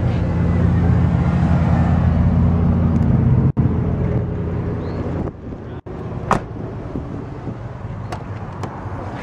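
A vehicle engine's low rumble, strong for about the first five seconds and then fainter. There is a sharp click a little after six seconds, and light clicks near the end as a hand works a car door handle.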